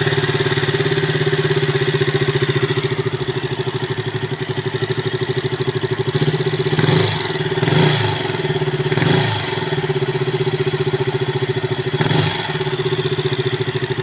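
KTM RC 200's single-cylinder engine idling with a loud rapid ticking, and blipped briefly four times in the second half. The ticking comes from valves set out of clearance after a top overhaul with non-genuine valves.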